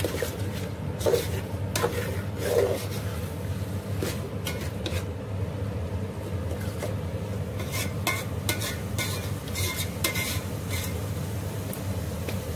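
Metal spoon stirring chicken livers in masala around a metal pot, with irregular clinks and scrapes of the spoon against the pot and faint sizzling as the livers fry. A low steady hum runs underneath.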